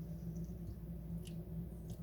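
A few faint, short clicks over a steady low hum.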